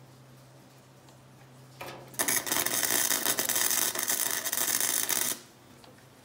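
MIG welder arc crackling as it runs a bead on a sheet-metal fender joint: a brief start about two seconds in, then a steady crackle for about three seconds that cuts off sharply. A low steady hum sits underneath before and after.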